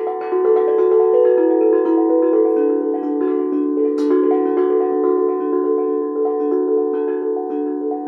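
Steel handpan played with small felt mallets: a quick, continuous run of ringing notes, several a second, each sustaining into the next. One brighter, sharper strike comes about four seconds in.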